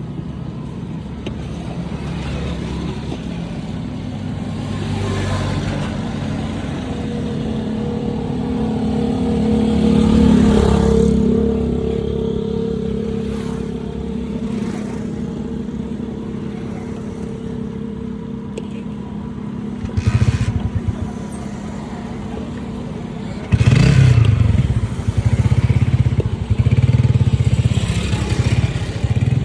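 Passing road traffic: a vehicle engine swells and rises in pitch about a third of the way in. In the last few seconds a motorcycle engine runs close by, loud and throbbing.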